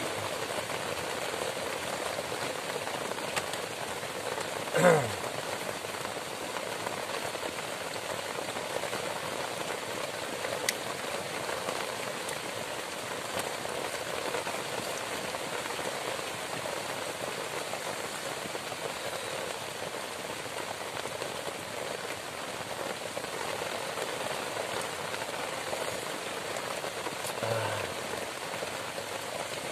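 Fairly heavy rain falling steadily on the leaves and on the grass-and-leaf roof of a small shelter. About five seconds in there is a brief tone that slides downward.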